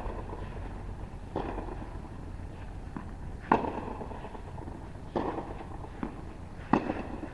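Tennis racket strings hitting the ball in a rally: sharp pops about three seconds apart, the second one the loudest, with fainter knocks and scuffs between.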